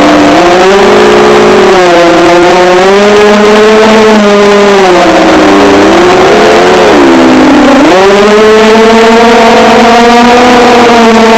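FPV multirotor drone's electric motors and propellers whining loudly, the pitch rising and falling smoothly with the throttle. The pitch drops low about seven seconds in, then climbs sharply back up.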